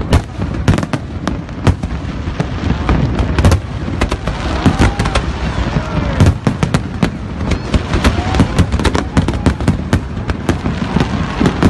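Fireworks display going off: a dense, continuous run of sharp cracks and bangs over a low rumble, with spectators' voices underneath.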